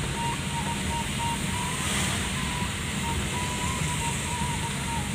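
Steady in-car drive noise from the engine and tyres on a rain-wet road, with rain against the windscreen, swelling a little about two seconds in. A faint, thin wavering tone sounds over it.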